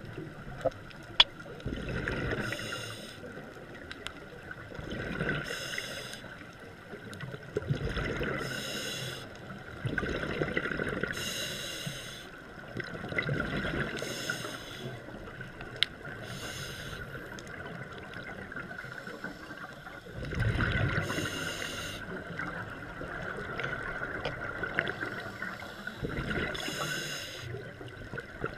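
Scuba regulator breathing underwater: a hiss and a rumbling rush of exhaled bubbles in a slow cycle about every three seconds, with a few sharp clicks.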